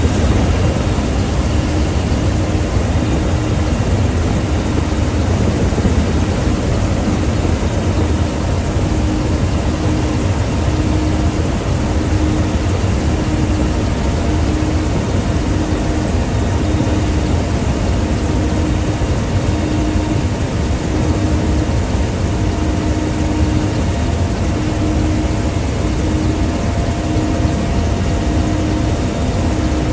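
Steady, loud helicopter engine and rotor noise heard from inside the cabin, with a low rumble and a faint steady hum that does not change.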